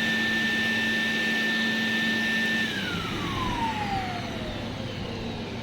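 Electric handheld air blower-vacuum running in suction mode with a steady high whine, then winding down about halfway through, its whine falling steadily in pitch as the motor slows.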